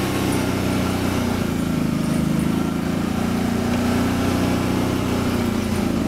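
A small engine running steadily, its pitch lifting slightly for a moment in the middle.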